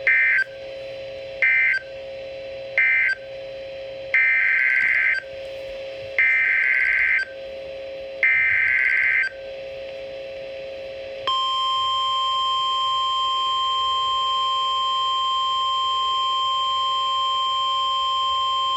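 NOAA Weather Radio EAS signalling. First come three short SAME data bursts, the end-of-message code closing the previous warning, then three longer bursts of about a second each, the SAME header of the next tornado warning, each a raspy warble of digital data. About 11 seconds in, the steady 1050 Hz warning alarm tone starts and holds to the end.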